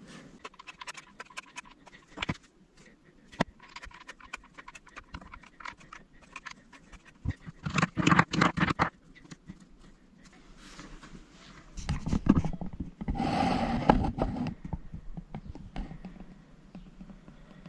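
Small bolt-and-cap knobs handled on a wooden workbench: scattered clicks and light knocks of metal and plastic on wood. Two louder, longer stretches of noise come about eight and about thirteen seconds in.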